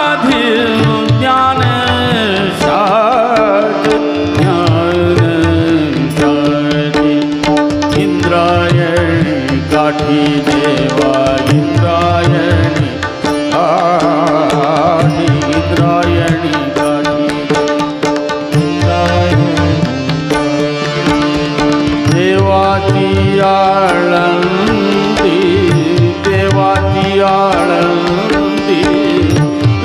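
Live Marathi abhang performance in classical style: a male voice singing long ornamented melodic runs over a steady drone, with tabla strokes keeping the rhythm.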